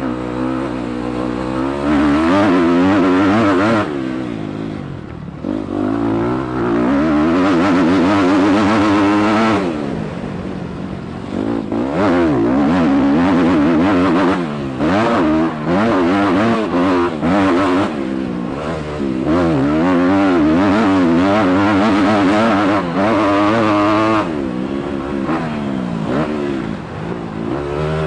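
Motocross bike engine revving hard and falling off as the rider opens and closes the throttle, its pitch sweeping up and down through the gears. Long full-throttle stretches are broken by a few short lifts off the gas, heard on board the bike.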